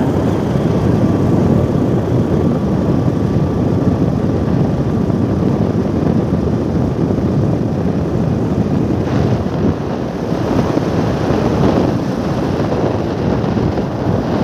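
Loud steady rush of wind over the microphone mixed with the noise of a moving vehicle.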